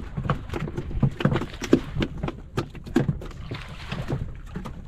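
Irregular knocks and slaps around a small wooden fishing boat at sea, over a constant low rumble.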